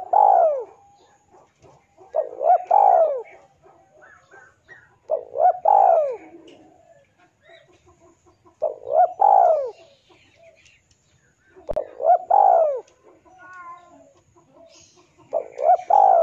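Male spotted dove cooing: six phrases of two or three rising-and-falling coo notes, one about every three seconds. It is the male's call to a rival male.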